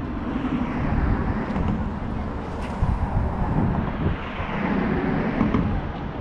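Road traffic passing, a steady rushing and rumble that swells twice as vehicles go by, with wind buffeting the microphone.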